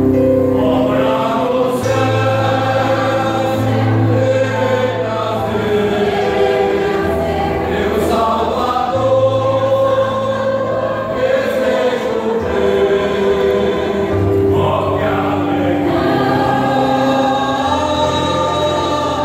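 Mixed choir of men's and women's voices singing a gospel-style church song in harmony, long held chords changing every couple of seconds over sustained low bass notes.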